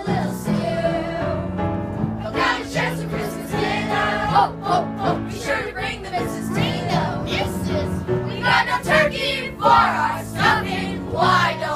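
A group of voices singing a show tune together over musical accompaniment.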